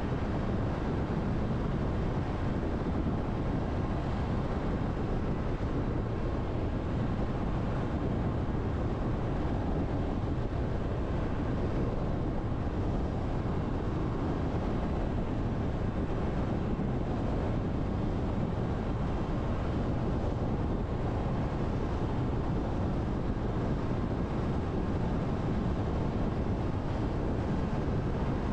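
Steady tyre and wind noise of a car driving at expressway speed, a low, even rumble.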